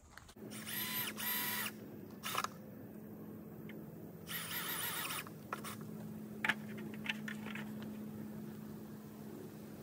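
A power drill's motor whirring in two short bursts about a second in, then for about a second midway, with a few sharp clicks and knocks between, over a steady hum.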